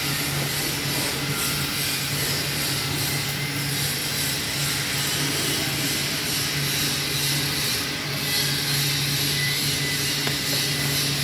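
TIG (argon) welding of a root pass on 36-inch pipe: a steady hiss of the arc over a constant low hum from the welding set.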